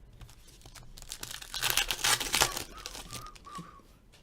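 Foil trading-card pack wrapper being torn open and crinkled: a loud crackling rip lasting about a second and a half, starting about a second in.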